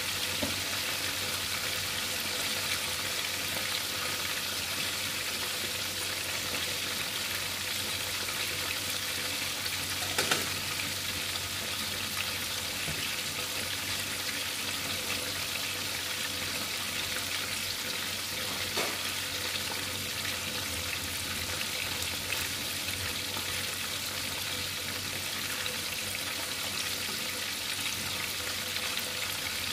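Oil sizzling steadily as a whole tilapia deep-fries in a pan, with a couple of sharp pops, the loudest about ten seconds in.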